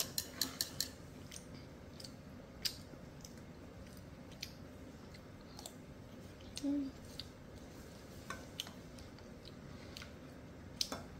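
Metal spoon clicking and scraping against a bowl while a child eats soup: a quick run of sharp clicks in the first second, then scattered single clicks. A brief low hum comes just past the middle.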